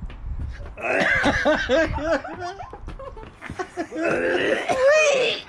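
Two men laughing in two bouts, the second near the end, with some coughing mixed in.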